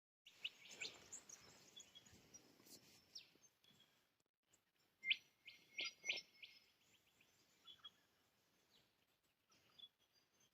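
Faint wild bird calls: scattered short chirps and whistles, with a cluster of sharper notes about five to six seconds in.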